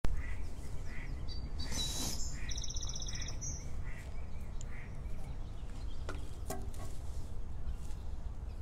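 Outdoor ambience: a steady low wind rumble on the microphone, with birds calling repeatedly over the first few seconds, a short high pulsing trill about three seconds in, and a few more calls later.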